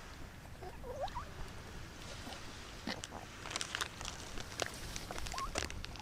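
A small dog whimpering in a few short, squeaky rising whines, with light clicks and taps around it.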